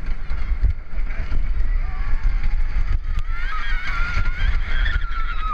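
Wind buffeting the microphone of a camera on a moving wooden roller coaster, with a deep, continuous rumble. From about three seconds in, riders scream in high, wavering voices.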